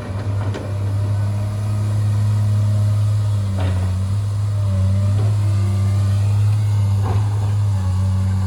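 Diesel engine of heavy machinery running steadily with a deep, even drone, with a few light knocks and clanks over it.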